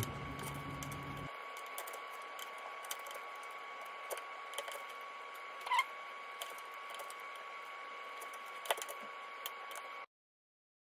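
Faint, irregular taps and clicks of a kitchen knife on a plastic cutting board as raw chicken wings are cut apart at the joints, over a steady faint high-pitched hum. The sound cuts off abruptly about a second before the end.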